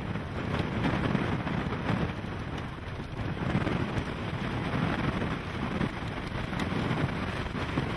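Wind-driven rain lashing a car, with strong gusts blowing in through a knocked-out side window. The noise swells and dips with the gusts.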